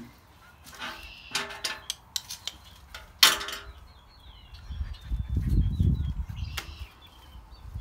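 Small hand tools clicking and clinking as they are handled, among them a pair of puppy nail clippers. Faint bird chirps come in about four seconds in, and a low rumble follows at about five seconds.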